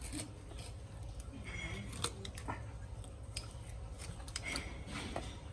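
Scissors snipping through a crocodile's scaly belly hide, a run of irregular sharp cuts as the blades work along the body.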